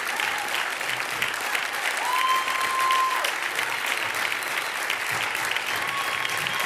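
Studio audience applauding: dense, steady clapping from a large crowd. A single held high tone rises above the clapping about two seconds in and lasts about a second.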